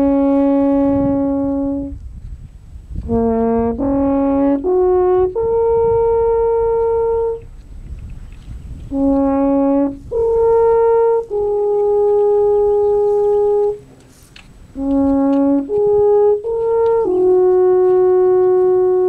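Alphorn playing a slow melody: phrases of a few stepped notes, each ending on a long held note, with short pauses between phrases.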